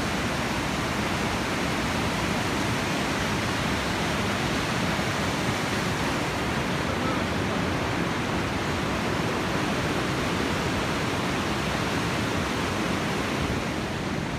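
Steady rushing of a river running below a suspension bridge, an even roar of water with no breaks.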